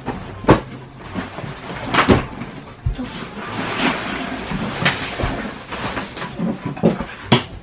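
Clothes and padded jackets being scooped off a bed and stuffed under it: fabric rustling and brushing, with four sharp knocks and thumps of things hitting the bed and floor.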